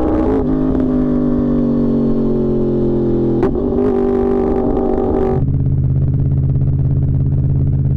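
Yamaha R1 sportbike's inline-four engine running at fairly steady revs. About three and a half seconds in there is a sharp click and the engine note steps up in pitch, and about two seconds later its tone changes again to a deeper, lower-heavy note.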